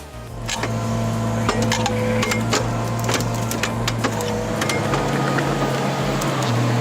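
A machine's engine running steadily, with irregular sharp clanks and knocks over it. The engine pitch rises slightly a little over halfway through.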